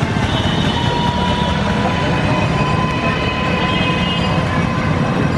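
Street traffic noise: motorcycles and electric rickshaws passing close by, with a steady high whine held for about four seconds.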